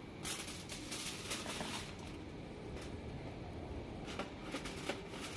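Aluminium foil crinkling and crackling as wet boiled goat meat is set down on it, in two bouts: one just after the start and one near the end.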